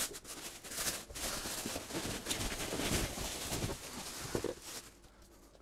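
Clear plastic wrapping rustling and crinkling as a wrapped boat motor is pulled up out of a cardboard box, with light knocks against the box and foam packing. The crinkling dies down near the end.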